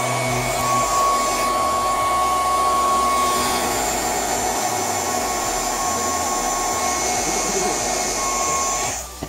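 Handheld hair dryer running on hot air, blowing into a speaker box to melt the hot glue that holds its antenna: a steady rush of air with a thin motor whine, switched off suddenly near the end.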